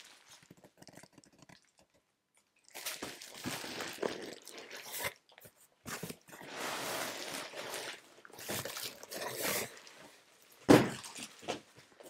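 Parcel packaging being unwrapped by hand: plastic wrapping and paper crinkling and rustling against a cardboard box, in irregular bursts after a short pause about two seconds in. A single sharp knock near the end as the box or package is set against something.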